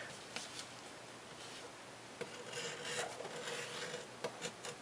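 Faint rubbing of a bar of beeswax along a leather edge, a soft scraping with a few light taps, waxing the edge ready for burnishing.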